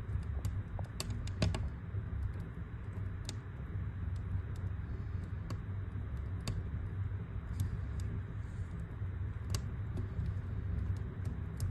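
Wood fire crackling in a fireplace. Irregular sharp pops and snaps come over a steady low rumble, with a quick cluster of snaps about a second in.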